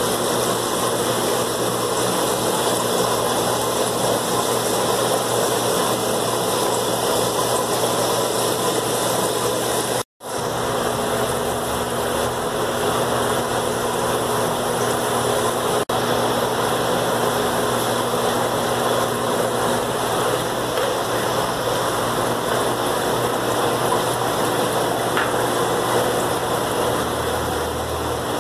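Steady hum and hiss of aquarium air pumps and filters running, cutting out for a moment about ten seconds in.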